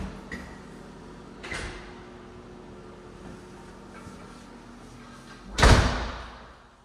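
An apartment entry door swinging shut with a heavy thud about five and a half seconds in, which dies away over about a second. A lighter knock comes earlier.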